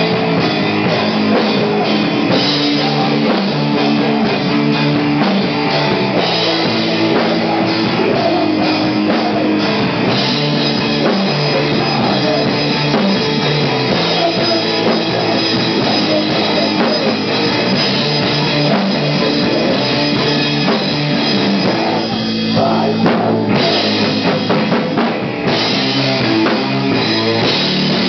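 Stoner rock band playing live, with heavy electric guitar and a drum kit carrying a steady riff.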